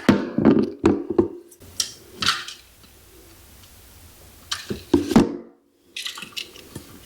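Scattered small clicks and taps of pliers working a bare copper ground wire into a hook loop, with the sound dropping out briefly about five seconds in.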